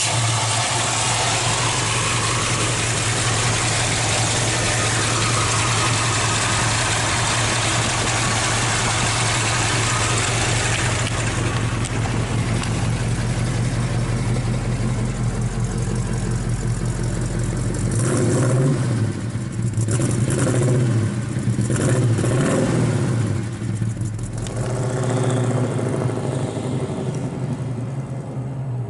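1973 Ford Mustang Grande's 351 two-barrel V8 idling steadily, revved several times a little past halfway, then pulling away near the end.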